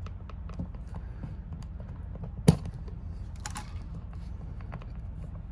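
Wire strippers working on electrical wires: faint scattered clicks and scrapes, with one sharp click about two and a half seconds in and a brief scrape a second later.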